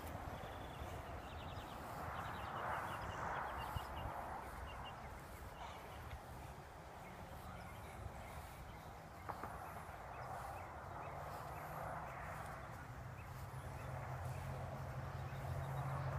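Outdoor ambience: a steady wash of background noise that swells and fades, with faint short bird chirps in the first few seconds. A low steady hum comes in about ten seconds in.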